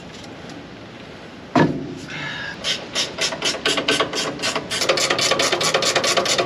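A single sharp metal knock, then a quick, even run of clicks, about five a second, from a ratchet wrench being worked on a bolt of a combine's pulley and belt drive.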